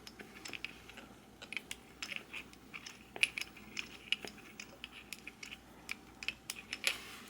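Faint, irregular small clicks and taps of a grease gun and steel bottom bracket cup being handled while marine grease is put into the bearing race.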